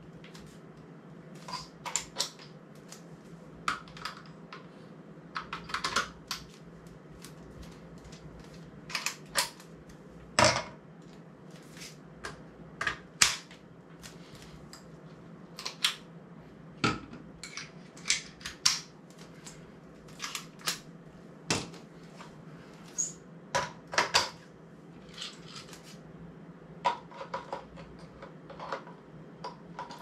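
Irregular sharp clicks and knocks of metal camera-support hardware being handled: quick-release plates and clamps snapping onto and off tripod heads, and parts being set down, over a low steady hum.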